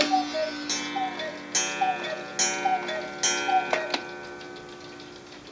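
Cuckoo clock calling twelve o'clock: repeated two-note falling cuckoo calls, each with a ringing strike, the last few of the hour. The calls stop about four seconds in with a clunk of the mechanism, leaving the clocks ticking.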